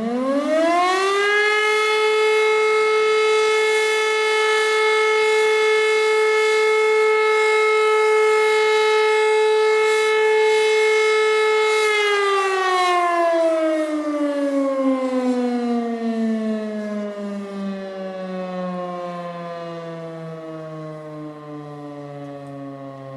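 Civil defence siren sounding the German Feueralarm (fire alarm) signal. It climbs to a steady tone within about two seconds and holds it for roughly twelve seconds. Then it winds down, the pitch sliding lower and the sound fading.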